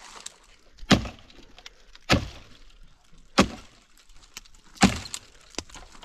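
Axe chopping into the trunk of a leafless tree: four sharp blows, one every second and a quarter or so, with a fainter knock near the end.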